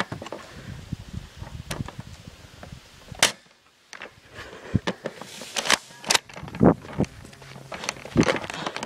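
Airsoft guns firing: a run of sharp, irregularly spaced pops and snaps, the loudest crack about three seconds in, with a brief drop-out just after it.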